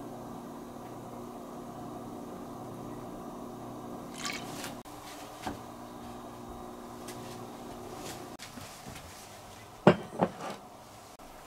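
A steady low electrical hum with a few light clicks stops about three-quarters of the way in. Near the end a ceramic rice bowl is set down on a wooden table with two knocks.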